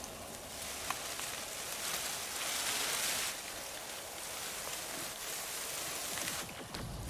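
Steady outdoor ambience hiss, like light rain, swelling for about a second near the middle, with one faint click about a second in.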